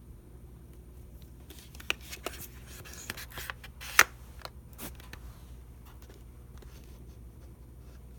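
Hands handling a new weather radio and its packaging: a cluster of clicks and rustling scrapes between about two and five seconds in, the sharpest click about four seconds in.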